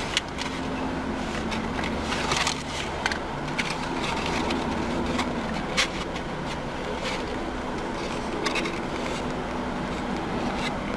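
Close-up eating sounds: a warm chocolate chip cookie being chewed, with scattered wet mouth clicks and smacks over a steady low hum.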